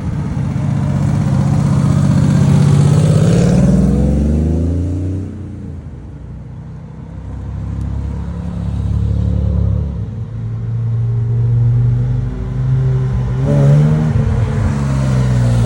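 Car engines revving and accelerating, their pitch climbing sharply a couple of seconds in and again near the end, with a lower, steadier engine note in between.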